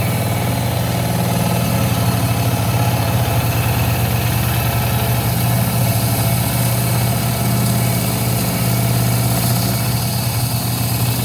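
Rock saw running steadily while cutting through an amygdule, a crystal-lined agate nodule. A constant motor hum sits under an even hiss of the blade in the stone.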